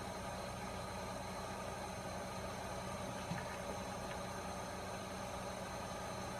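Steady hum and hiss of a small electric blower running on the repair bench, with a faint tick about three seconds in.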